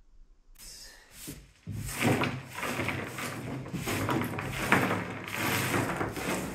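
Irregular scraping and crumbling of plaster rubble as a long-handled tool works along the base of an old lath-and-plaster wall during demolition, starting about two seconds in.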